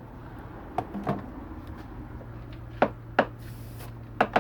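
A few light clicks and knocks, about six, in pairs near 1 s, 3 s and just after 4 s, as parts of a hand-pump diesel injector tester are handled, over a steady low hum.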